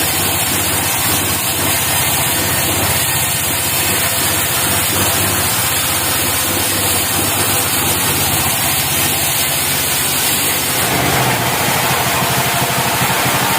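Portable band sawmill's engine running steadily, its sound shifting and growing brighter about eleven seconds in.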